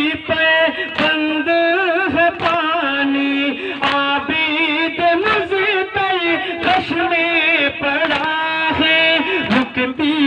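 Shia nauha sung by a male reciter over a public-address microphone: long, drawn-out lines with a wavering, ornamented pitch. Sharp strikes come about once a second, the mourners' matam, hands beating on chests in time.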